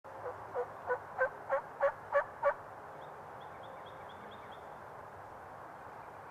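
A run of eight turkey yelps, about three a second, each louder than the last, stopping about two and a half seconds in.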